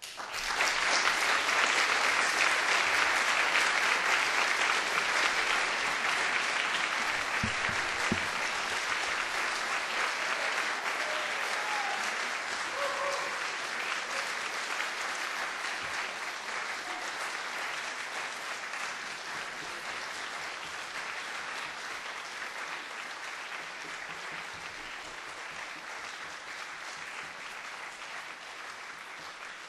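Audience applauding at the close of a piece, breaking out suddenly from near silence and slowly dying away.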